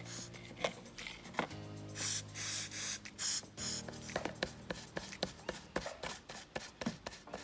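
Background music with a short hissing burst about two seconds in, then a run of quick clicks and taps, about three a second, from small hand work on a phone.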